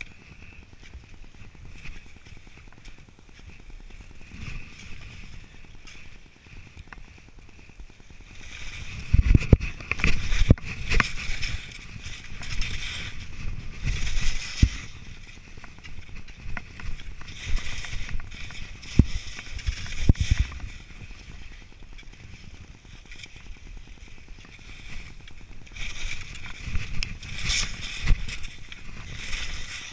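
Skis hissing and scraping over snow through a run of turns, with wind rush and deep thumps on the microphone. It gets louder and choppier from about nine seconds in.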